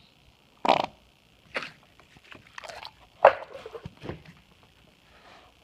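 Slime squeezed and pressed by hand, making a run of about five fart-like squelches, the loudest a little past the middle, over a steady hiss from a poor microphone.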